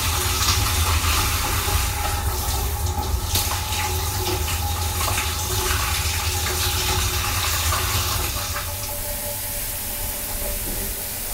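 Water running from a handheld shower head in a train's shower cabin, splashing over a person. Near the end the spray falls onto the perforated plastic floor grate and becomes quieter. A steady low hum sounds underneath.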